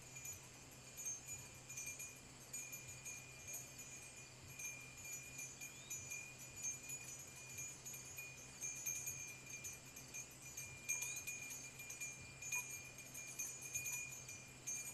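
Faint outdoor ambience: a steady high-pitched ringing drone with a low hum beneath it, and a couple of short rising chirps about six and eleven seconds in.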